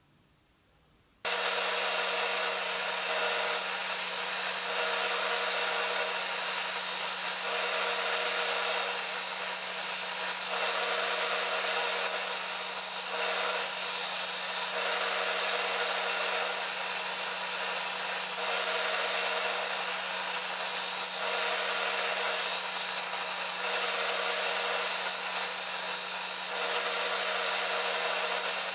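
Belt grinder running, with an N690 steel knife blade being hollow-ground against its contact wheel: a steady grinding hiss over a steady motor hum, swelling with each pass about every two seconds. It starts suddenly about a second in, after near silence.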